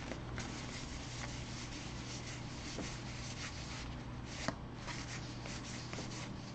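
Stack of baseball trading cards being slid and flipped one by one between two hands: cardstock rubbing and brushing, with small clicks as card edges snap past each other. A low steady hum runs underneath.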